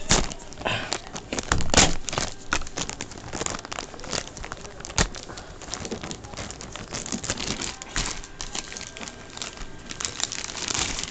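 Clear plastic packaging crinkling and crackling in irregular bursts as a coiled cable in its plastic bag is handled.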